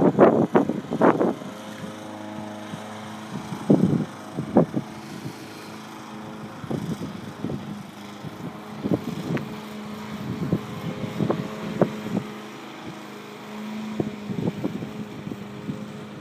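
Electric recumbent cycle in motion: a steady low hum with irregular knocks and rattles, several loud ones in the first second.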